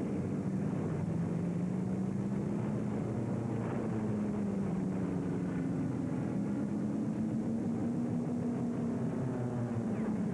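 Propeller aircraft engines droning steadily, the engine note drifting slowly up and down in pitch.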